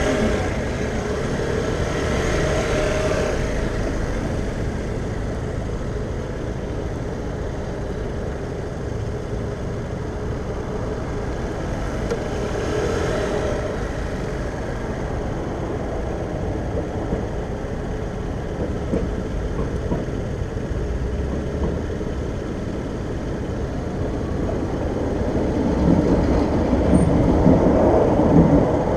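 Steady city traffic noise around a scooter waiting at a red light, with a tram approaching close by near the end and growing louder.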